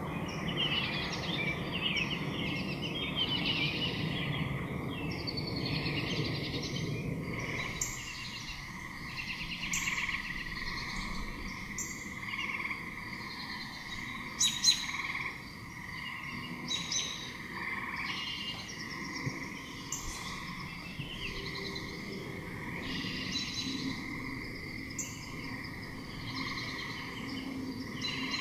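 Chorus of water frogs calling: pulsed croaks that come and go in repeated bouts, over a steady background of more distant calling. There are a couple of sharp clicks about fourteen and a half seconds in.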